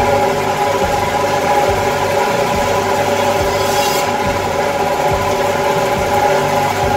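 Butcher's meat bandsaw running with a steady hum and whine as its blade cuts through bone-in beef rib. A brief higher hiss comes a little past the middle, as the blade goes through a piece.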